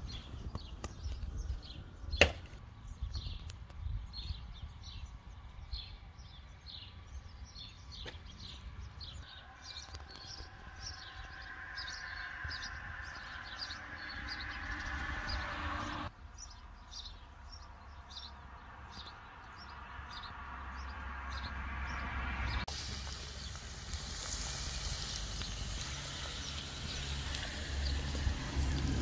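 Small birds chirping over a low rumble, with one sharp knock about two seconds in. In the last several seconds, a steady sizzle of sausages, meat patties and potato wedges frying on a steel disc cooker (tanjurača) over a wood fire.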